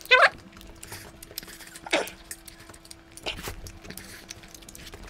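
Quiet eating by hand from steel plates: fingers working the food, small clicks and soft chewing, over a faint steady hum. Just after the start a short, high squeal rises sharply in pitch and is the loudest sound.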